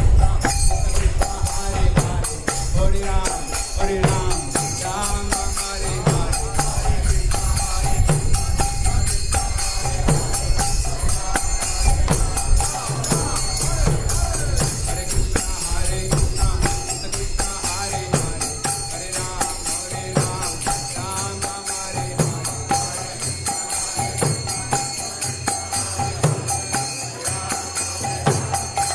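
Devotional kirtan music: karatalas (small brass hand cymbals) ringing in a steady beat over a mridanga, the two-headed clay drum, with voices chanting. The low drum strokes are heavier in the first half and thin out later.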